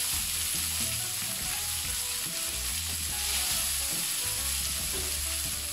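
Boiled tagliatelle frying in hot oil in a pan: a steady sizzle.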